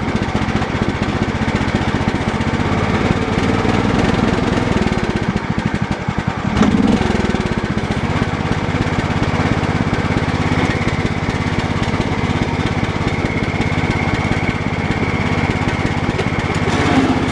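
Cub Cadet 1018 lawn tractor engine idling steadily, with one brief louder thump about six and a half seconds in.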